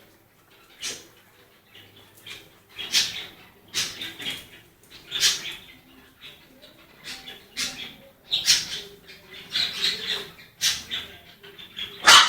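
Siberian husky puppies giving short, high squeaks and whimpers, a dozen or so scattered irregularly, with one of the loudest near the end.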